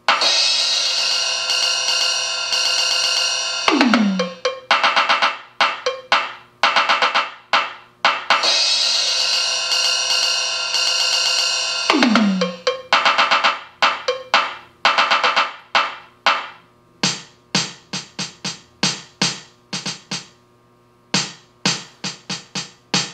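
LinnDrum drum machine playing back a programmed song. It opens with a long bright ringing hit, then a drum hit that drops in pitch, then a run of regular drum strokes. The same sequence starts again about halfway through, and the beat thins to sparser strokes near the end.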